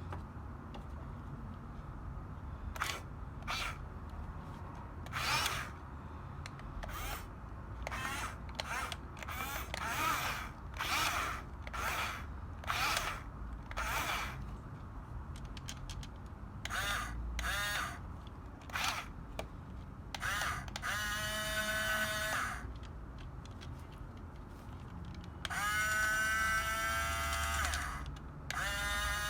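Small electric motors of a Huina 6-channel RC bulldozer whirring in many short bursts, then running in three longer stretches with a steady whine near the end.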